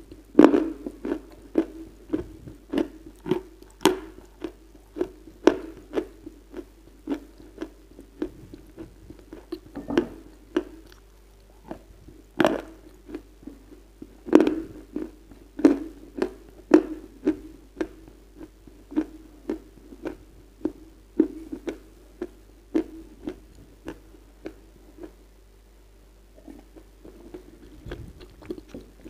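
Close-up chewing of edible clay, a wet crunch: a steady run of sharp crunches and clicks, about one or two a second, that dies down for a few seconds near the end.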